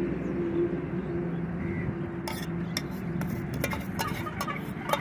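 Metal spoon scraping and clinking against a steel tumbler while spiced wood apple mash is spooned into the fruit's shell, with a string of sharp clinks starting about two seconds in. A low steady hum runs underneath.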